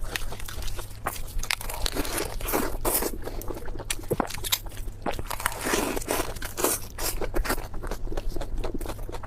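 Close-miked mukbang eating sounds: biting and chewing food, a dense, irregular run of crunches and wet smacking clicks.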